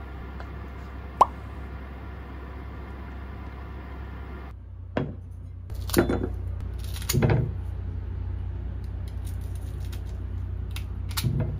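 A lid clinks once on an enamelled cast-iron pot, about a second in. Later, kitchen scissors snip through a cucumber several times, the pieces knocking into a glass bowl, over a low steady hum.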